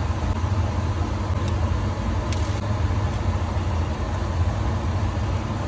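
Steady low mechanical hum with an even hiss above it, broken by a few faint ticks.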